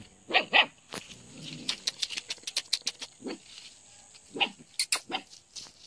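Frightened puppies giving short, high yelps and whimpers: two close together at the start and a few more about three to five seconds in, among scattered light clicks and rustles.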